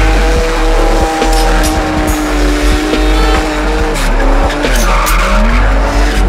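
Car drifting with its tyres squealing steadily and the engine revving, its pitch dipping and then climbing again about two-thirds of the way through.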